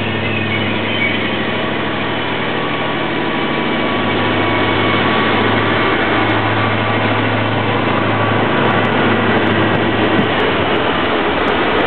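Trenitalia Minuetto diesel multiple unit pulling away from the platform, its diesel engines running under power with a steady low hum. The hum fades about two-thirds of the way through, leaving the rumble of the cars rolling past on the rails.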